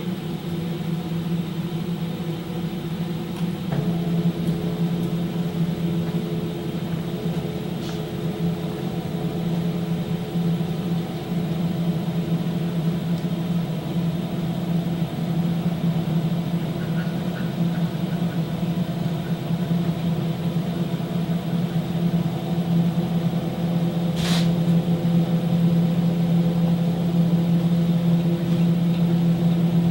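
CNC router's gantry drive motors humming steadily as the gantry moves slowly along the table, a little louder toward the end, with two short clicks, about 8 and 24 seconds in.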